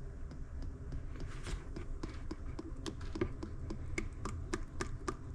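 Irregular light clicks and taps, several a second, as clutch friction discs and an oil container are handled while the discs are dipped in oil, over a low steady hum.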